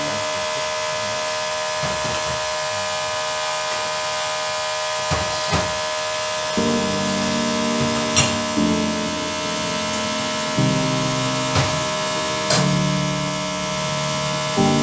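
A steady buzzing hiss with a few light knocks; soft piano-like background music comes in about six and a half seconds in.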